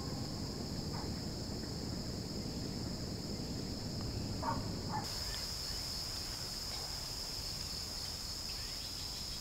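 Insects chirring steadily in a high-pitched continuous drone over faint low ambient noise; the chirring grows louder and more pulsing about halfway through.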